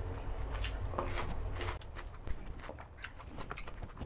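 Close-miked chewing and wet mouth sounds of a man eating mutton biryani by hand: a run of quick smacks and clicks as he chews.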